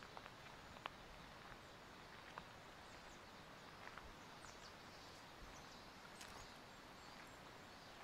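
Quiet outdoor ambience: a faint, even wash of noise with a few scattered light ticks and clicks.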